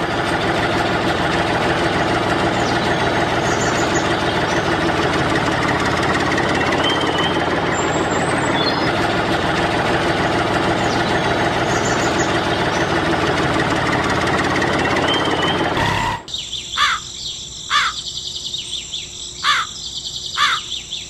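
An engine runs steadily and loudly, with birds chirping over it. About three-quarters of the way through, the engine cuts off suddenly, leaving a few short bird chirps and a high steady tone.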